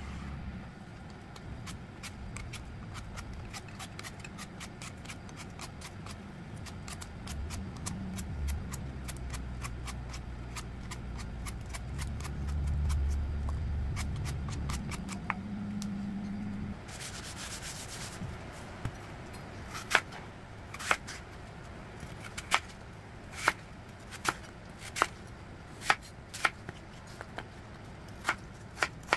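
A Y-shaped vegetable peeler scraping the skin off an apple in many quick rasping strokes. About two-thirds of the way through this gives way to a knife cutting apple on a wooden cutting board, sharp knocks about once a second.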